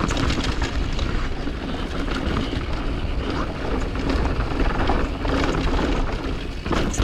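Mountain bike descending a rough downhill trail: wind rumbling on the camera microphone, with tyre noise and frequent short rattles and clatters from the bike over the terrain.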